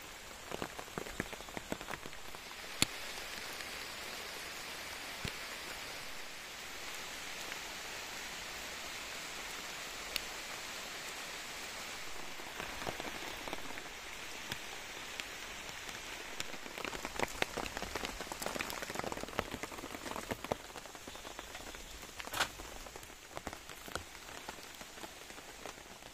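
Rain falling steadily in the forest: a constant hiss with scattered sharp drips and taps, which come thicker for a few seconds past the middle.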